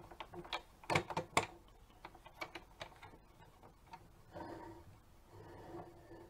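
A plastic toy garbage truck being handled and moved on a wooden tabletop: a cluster of sharp plastic clicks and knocks about a second in, then scattered lighter clicks.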